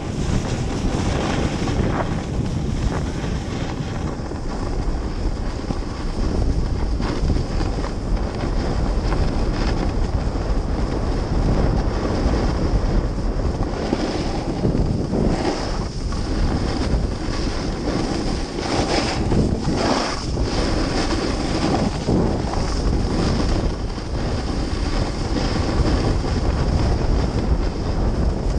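Wind buffeting the camera microphone on a fast downhill run, mixed with the steady hiss and scrape of edges sliding over snow, which swells in louder surges about halfway through.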